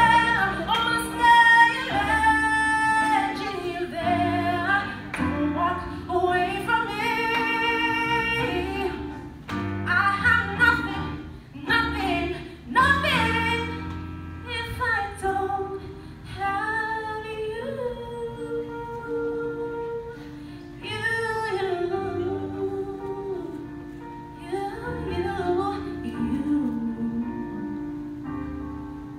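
A woman singing a slow power ballad live into a microphone, with sustained, swooping held notes over a steady instrumental accompaniment.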